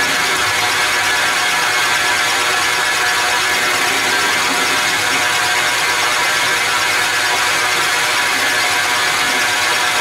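Metal lathe running at steady speed with a dense, even gear-train whir and rattle, while a carbide insert tool takes a light cut on the end of a small spinning knob.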